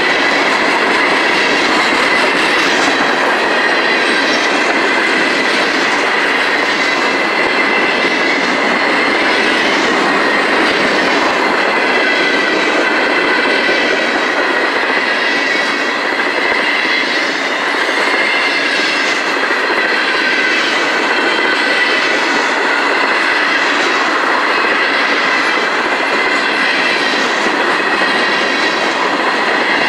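Freight cars of a CSX mixed freight train rolling steadily past: continuous rumble and wheel clatter on the rails, with a steady high-pitched tone running over it.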